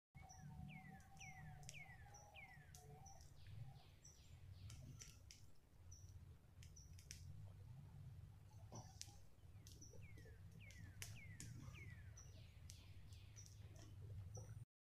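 Faint forest birdsong: a run of quick falling whistles near the start and another about two-thirds in, over repeated short high chirps. Scattered soft clicks and a low steady rumble sit underneath.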